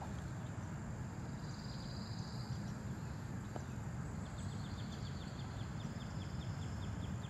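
Quiet outdoor background at the edge of a pond: a steady low rumble, with a faint high warble early on and a faint rapid ticking, about five ticks a second, through the second half.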